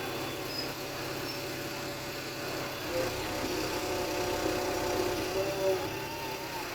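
An engine running steadily, with a constant low drone.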